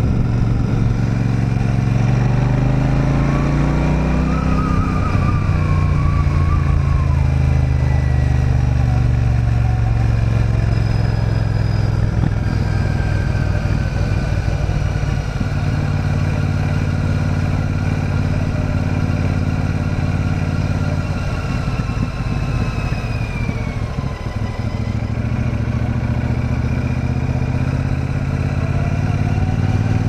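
Royal Enfield Super Meteor 650's 648cc parallel-twin engine under way. The revs climb over the first five seconds and then drop back. It runs steadily, eases off about two-thirds of the way through, and pulls up again near the end.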